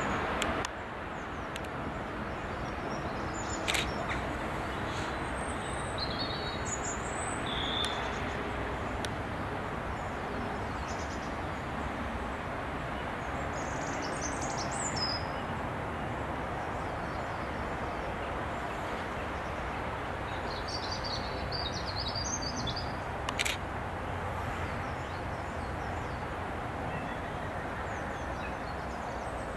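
Steady outdoor background noise with small birds chirping now and then, and two short sharp clicks.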